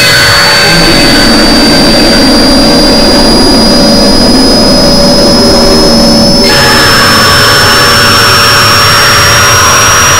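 Loud, harsh layered noise with a thin, piercing high tone that climbs slowly and steadily in pitch throughout. The texture of the mix changes abruptly about six and a half seconds in.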